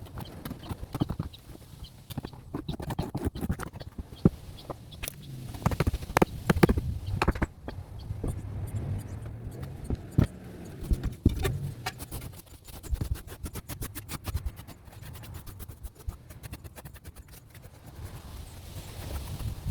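Wooden deck boards being knocked and scraped as they are worked loose: irregular knocks and thuds, then a run of fast clicking taps in the later part.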